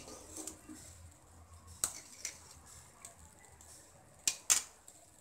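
Steel ladle clinking and scraping against a stainless-steel kadai while stirring the vegetables: a few scattered clinks, the loudest two in quick succession near the end.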